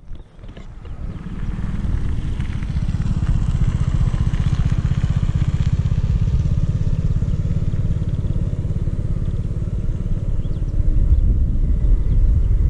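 Motorcycle engine running steadily, a fast even thrum of firing pulses that builds up about a second in.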